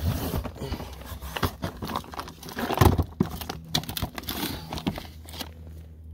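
Cardboard fireworks cake boxes being handled and moved: rustling, crinkling and knocks, loudest about three seconds in and dying down after about five seconds.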